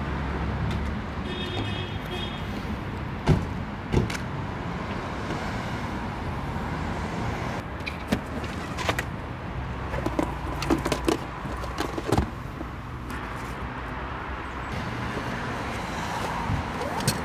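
Clicks and knocks of gear being handled in a car boot: fly-rod tubes and plastic tackle boxes being moved. Several sharp knocks come about three and four seconds in and a cluster follows in the middle, over a steady low street rumble.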